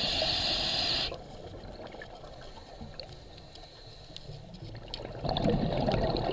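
A scuba diver's breathing heard through water. A steady hiss of the regulator inhale stops about a second in, then comes a quieter stretch of water noise. From about five seconds in there is the crackling rumble of exhaled bubbles.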